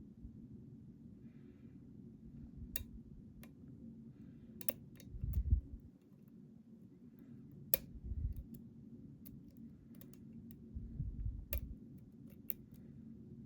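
Scattered light clicks of a thin lock pick raising and setting pins in a pin-tumbler challenge lock held under a tensioner, with a few dull handling thumps, the loudest about five seconds in.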